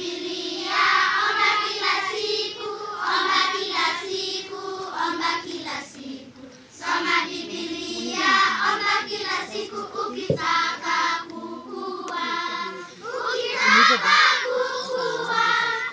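A group of children singing a song together, in phrases with held notes and short breaks between them. A single short knock about ten seconds in.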